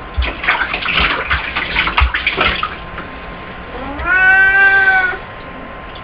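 A domestic cat being bathed gives one long, drawn-out meow of protest about four seconds in, after a couple of seconds of water splashing.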